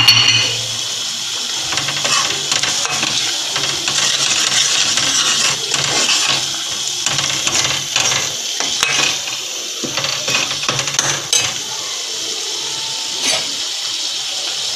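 Masala frying and sizzling in an aluminium pot while a steel ladle stirs it, with frequent scrapes and clinks of the ladle against the pot.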